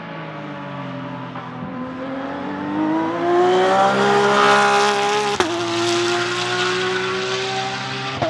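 Porsche 992 GT3 R race car's naturally aspirated 4.2-litre flat-six accelerating hard past. The note climbs through the gear, then snaps up a gear with a sharp crack about five seconds in. It is loudest as the car goes by, and it shifts up again right at the end.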